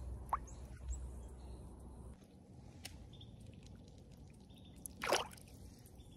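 Small water sounds as fish are let go by hand into shallow water, with one short, louder splash about five seconds in as a sunfish drops back into the water.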